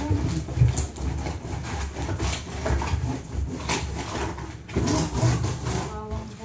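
Hands working packing tape onto a large cardboard box: tape and cardboard rubbing and rustling, with irregular knocks against the box.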